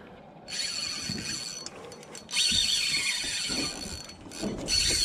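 Fishing reel drag screaming as line is pulled off, a fast ratcheting buzz in three runs, the middle one longest and loudest.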